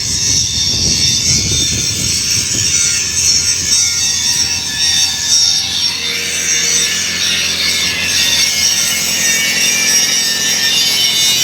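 Electric arc welding: the steady crackling hiss of the arc as a bead is laid, with a few dull knocks in the first few seconds.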